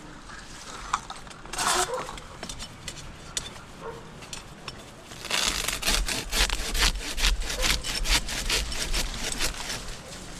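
Pruning handsaw cutting through palm frond wood, a few scattered scrapes at first, then quick, evenly repeated strokes from about halfway on.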